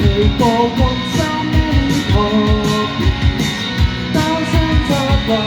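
Live rock band playing an instrumental passage: electric guitar and a steady drum beat, with a wavering melody line over the chords.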